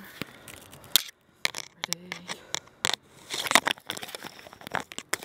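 Scattered light clicks and rustles of a plastic bubble wand and bottle being handled, with a short rush of breath blowing bubbles about three and a half seconds in.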